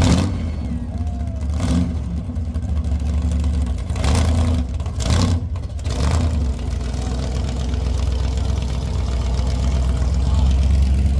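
A car engine running with a steady low rumble, broken by a few short, sharp noisy bursts.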